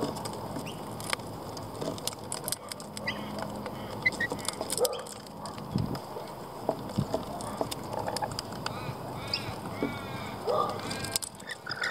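Rainbow lorikeets feeding on seeds and peanuts: scattered sharp clicks of beaks picking and cracking seed, with short chattering calls and, about nine to ten seconds in, a run of calls that rise and fall in pitch.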